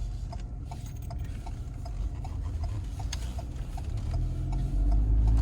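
Car's turn-signal indicator clicking steadily, about three clicks a second, over the low rumble of the engine and road inside the cabin. The rumble grows louder near the end.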